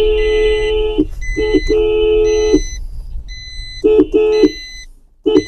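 Car horn honked in a series of blasts: a long one, two quick taps, another long blast of about a second, then short taps near the end, to get children's bicycles moved out of the way. A high electronic beep repeats behind it.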